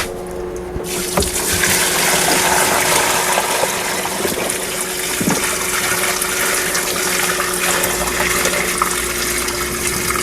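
Water pouring steadily into the tub of a small portable washing machine, filling it with clean water for the rinse cycle. The pour starts about a second in.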